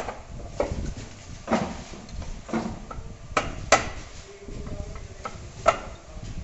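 Irregular metallic clicks and knocks from hands working the plate and clamp on an offset press's plate cylinder while the printing plate is set. About seven strikes of varied loudness, the sharpest a little past the middle.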